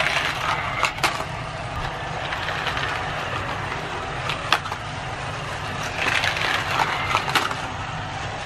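Battery-powered Magic Tracks light-up toy cars running along flexible plastic track and over a plastic ramp: a steady motor whir with the rattle of small plastic wheels and a few sharp clicks.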